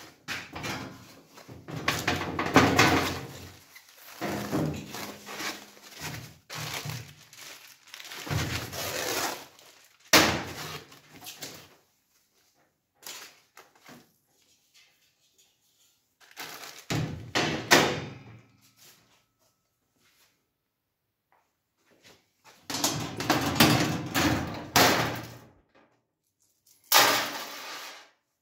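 Unpacking a folding welding booth: foam packing sheets rustling while thin steel panels and a perforated galvanized grate clank and thunk as they are lifted out and set down. It comes in irregular bursts with short pauses, with a couple of sharp metal knocks in the first half.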